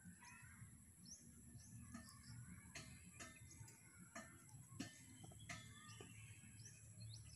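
Near silence: faint outdoor ambience with a few faint bird chirps and several soft clicks.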